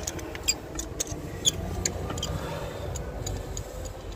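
Ratchet wrench clicking in short, irregular runs as a spark plug is turned out of the cylinder head with a socket and extension, over a low steady rumble.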